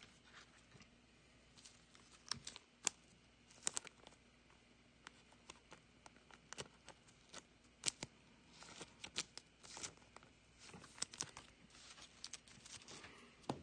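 Faint scattered clicks and rustles of glossy football trading cards being handled and slid into a soft plastic card sleeve.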